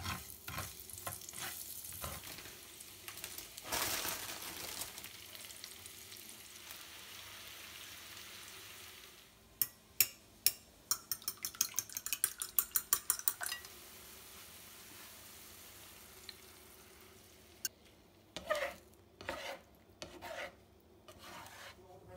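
Chopped garlic sizzling in hot oil in a frying pan, stirred with a utensil. About ten seconds in comes a quick run of sharp taps as a fork beats eggs against a ceramic bowl, and a few scattered knocks follow near the end.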